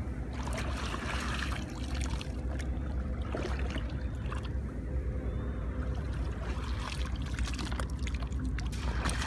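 Shallow lake water sloshing as a woven bamboo fish basket is worked through reeds and lifted out, water dripping from it near the end, over a steady low rumble.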